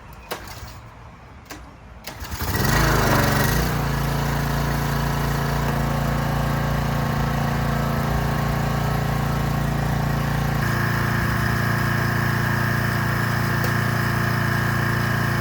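A pressure washer starting up after a few faint clicks, about two seconds in, then running steadily; its pitch shifts slightly about two-thirds of the way through.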